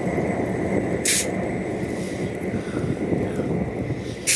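Canadian Pacific 2816 steam locomotive giving off two short bursts of hiss, one about a second in and one near the end, over a steady low rumble.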